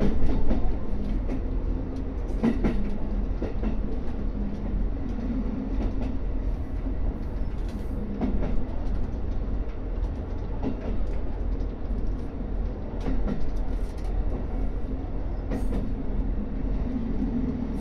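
Diesel railcar running on the line, heard from inside: a steady low engine and running hum, with single wheel clicks over rail joints every two or three seconds.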